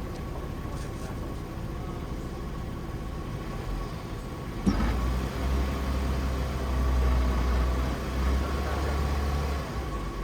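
Vehicle engine idling steadily. About halfway there is a sharp knock, then a louder low drone for about five seconds before it eases off.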